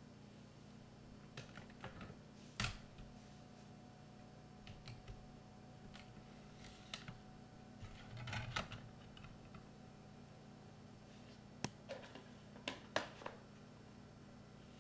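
Irregular, scattered clicks and knocks over a steady low hum, the sharpest about two and a half seconds in and a cluster of them near the end.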